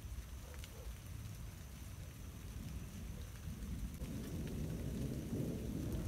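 Thunder rumbling low, swelling about four seconds in.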